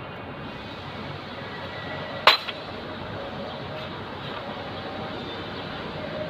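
A single sharp metallic clink of a hand tool striking metal about two seconds in, ringing briefly, with a smaller knock just after, over steady workshop background noise.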